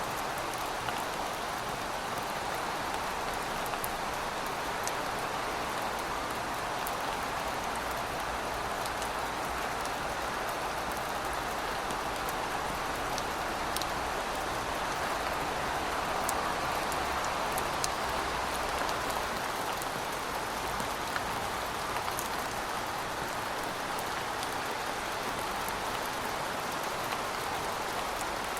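Steady rainfall, an even hiss with scattered sharp ticks of individual drops striking a surface.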